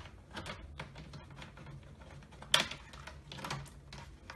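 Plastic clips of a Lenovo ThinkPad W530's screen bezel snapping loose as a plastic pry tool works along the bottom edge: a scatter of small clicks, the loudest about two and a half seconds in.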